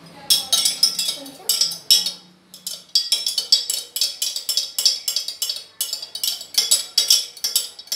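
Metal spoon stirring lassi in a glass jug, clinking quickly against the glass several times a second, with a short pause a little over two seconds in.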